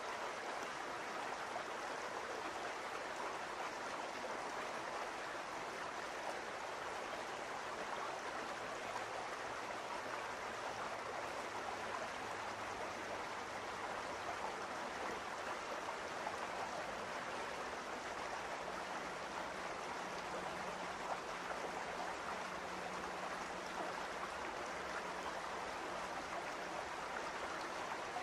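Steady, even rushing noise like a brook running.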